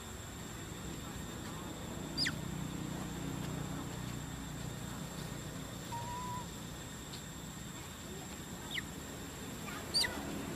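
Forest ambience: a steady high thin whine over a low murmur, broken by a few short, high squeaks that drop steeply in pitch, one about two seconds in and two near the end, and a brief flat whistle near the middle.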